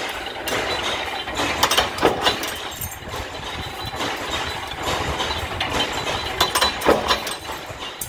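Mechanical power press running steadily, with sharp metal clanks as it punches small sheet-metal parts, a cluster of strikes about two seconds in and another near seven seconds.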